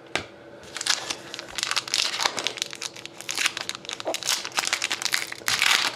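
Foil wrapper of a trading card pack crinkling as it is handled and torn open, a rapid crackle that grows louder near the end.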